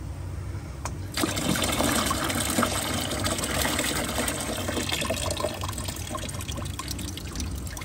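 Engine coolant pouring from a disconnected radiator hose connection into a drain container. It starts suddenly about a second in and eases to a lighter trickle in the last few seconds.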